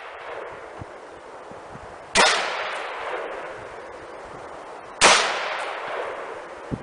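Two single shots from an IMI Tavor TAR-21 bullpup rifle in 5.56 NATO, about three seconds apart, each followed by an echo that dies away over about a second.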